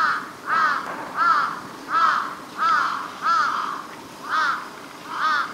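A crow cawing over and over, about eight short caws that each rise and fall in pitch, roughly one every two-thirds of a second.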